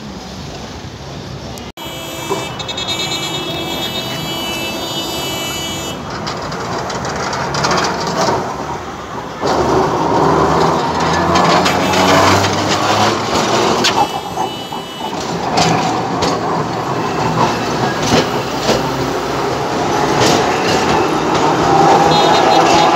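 Alexandria tram running past close by, its wheels rumbling on the rails and growing louder about nine seconds in as the cars draw alongside. A high-pitched squeal rings out from about two to six seconds and again briefly near fourteen seconds, over street traffic noise.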